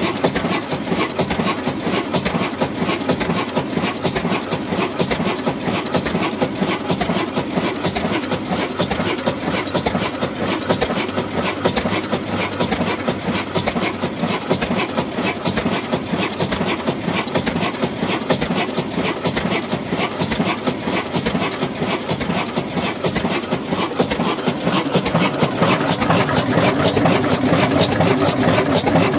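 Old 20 HP single-cylinder stationary diesel engine running steadily, with a fast, even clatter of its working strokes; it gets louder near the end.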